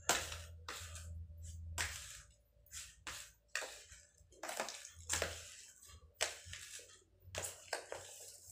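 Dry, crumbly fish-pellet bait being stirred and scraped by hand in a plastic tray: gritty rustling scrapes in uneven strokes, about one or two a second.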